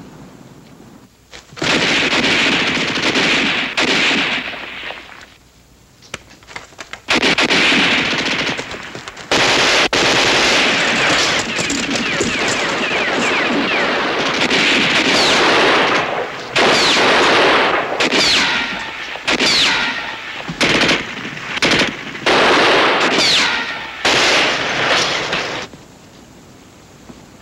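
Automatic gunfire: machine-gun and rifle fire in long bursts. It lulls briefly about five seconds in, then fires almost without a break until shortly before the end.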